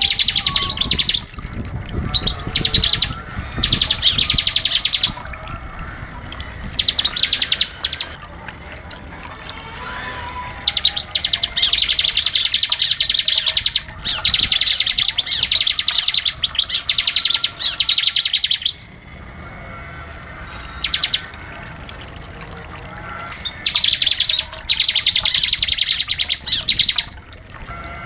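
Ciblek (bar-winged prinia) singing its rapid buzzing trill song in repeated bursts of one to four seconds, with short pauses between them.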